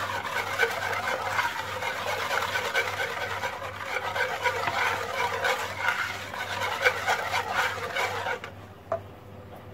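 A wire whisk beats a runny mixture of eggs, sugar, oil and orange blossom water in a wooden bowl. The whisking is fast and continuous, and stops about eight seconds in.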